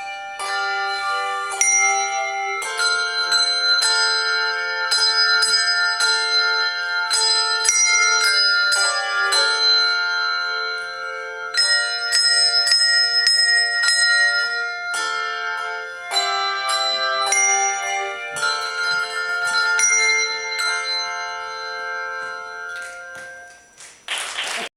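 Handbell choir ringing a piece: many struck bell notes, often several at once in chords, each ringing on after it is struck. The notes die away near the end, followed by a short burst of noise right at the close.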